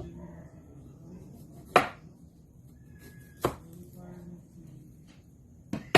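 Kitchen knife chopping an onion: four sharp strikes, spaced well apart, with the last two close together near the end.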